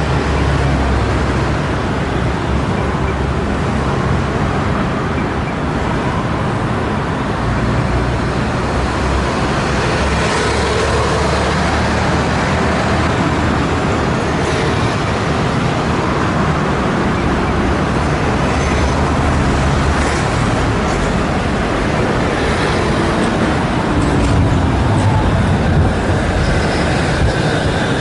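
Steady city road traffic, with cars and buses going by, while a streetcar approaches along street-running tracks. It draws close and pulls into the stop near the end.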